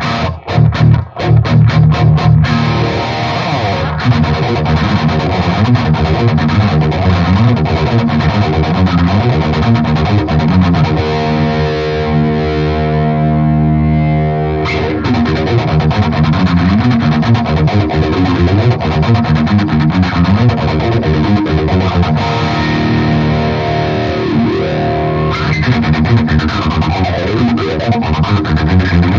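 Distorted electric guitar played through a Stewmac Lightcycle Phasor II, a kit clone of the Mu-Tron phaser that sweeps with light-dependent resistors, into a Mesa Boogie Badlander tube amp. A chord rings out for a few seconds in the middle. Toward the end the phaser's sweep is heard as a rising and falling whoosh over the notes.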